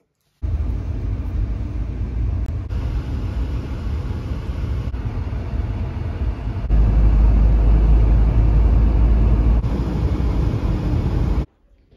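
Steady road and driving noise inside a moving car's cabin, heaviest in the low rumble. It changes abruptly several times where short clips are cut together, grows loudest past the middle, and stops suddenly near the end.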